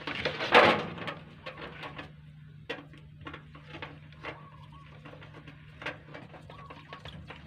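Wires of a vehicle harness being handled: a loud rustle about half a second in, then scattered light clicks and rustles, over a steady low hum. Short bird calls sound faintly in the background.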